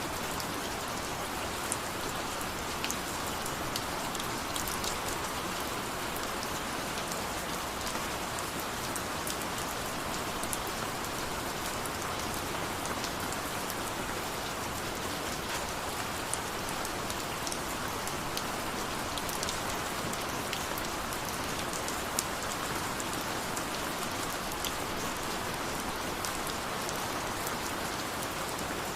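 Steady rain falling, an even hiss of rain with scattered individual drops ticking sharply on a surface.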